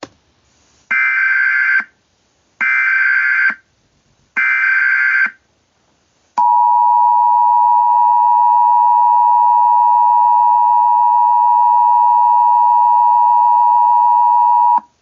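Emergency Alert System signal: three short bursts of SAME header data tones, each about a second long with about a second's gap between them, followed by the buzzy two-tone EAS attention signal sounding steadily for about eight seconds and cutting off abruptly.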